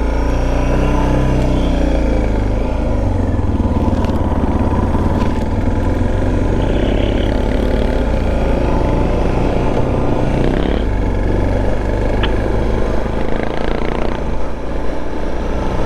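Suzuki DR650's single-cylinder engine pulling away and accelerating, its note rising and dropping as it shifts through the gears, with road and wind noise underneath.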